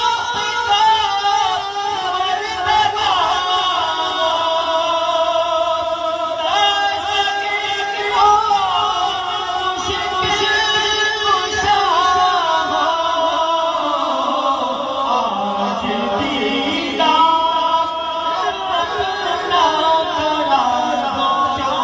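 Two men singing a naat (devotional Urdu hymn) into handheld microphones, without instruments, in long held notes with ornamented, bending pitch.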